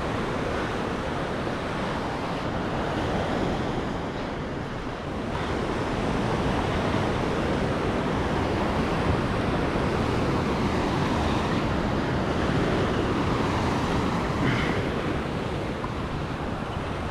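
Sea waves washing against coastal rocks, a steady rushing surge that grows a little louder about five seconds in, with wind buffeting the microphone.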